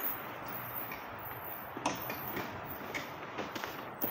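Rustling as bags and waste bins are handled while rummaging through the bins, with a few sharp knocks and clicks, the clearest about two seconds in and a cluster near the end.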